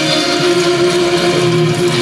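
Noise music played live on synthesizers and electronics: a loud, steady wall of noise with held droning tones underneath that shift in pitch.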